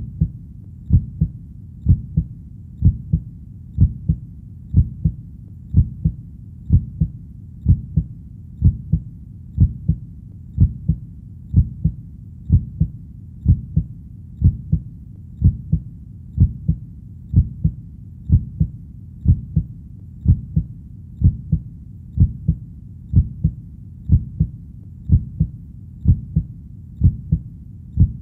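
Heartbeat sound beating steadily at a resting pace: a low double thump (lub-dub) about once a second, evenly repeated.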